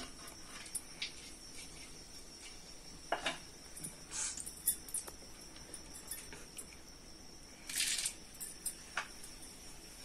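Bay leaves frying in hot mustard oil in an aluminium kadhai: a faint steady sizzle with scattered light crackles. About eight seconds in comes a brief louder sizzle as whole spices are dropped into the oil.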